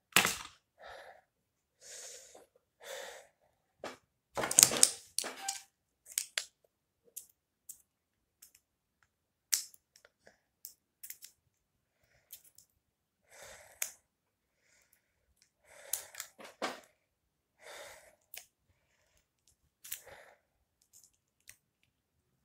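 Intermittent rustling and crinkling of plastic wrapping and small clicks as a phone charger and its packaging are handled, in short separate bursts with quiet gaps between.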